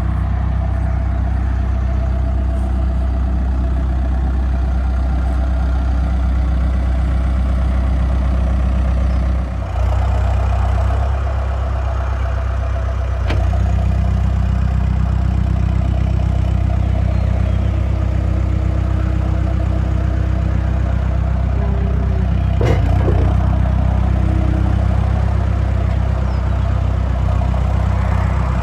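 2008 New Holland B95B backhoe loader's diesel engine idling steadily, its note stepping up slightly about 13 seconds in. There is a sharp knock about 23 seconds in.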